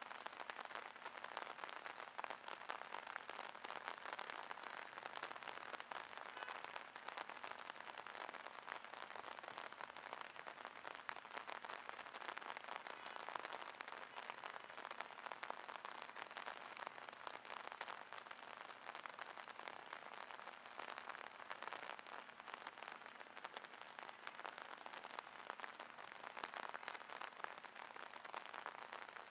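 Steady rain falling, a dense even patter of drops.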